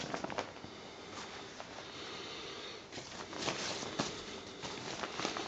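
Waterproof rain suit fabric rustling in irregular swishes as a hand moves and opens the jacket, the loudest about three and a half seconds in.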